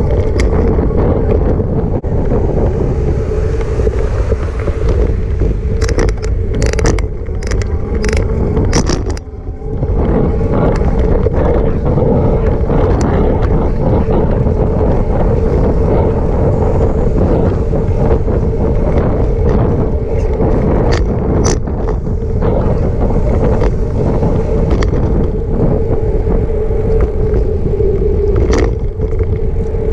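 Riding noise picked up by a bike-mounted camera: wind on the microphone and tyre rumble on the cycle path make a loud, steady roar with an even hum under it. Occasional sharp clicks and rattles come from bumps in the path.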